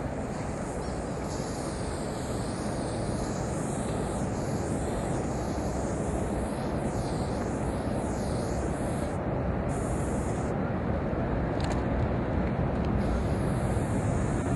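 Wind buffeting the microphone: a steady low rumbling noise that grows a little louder over the stretch.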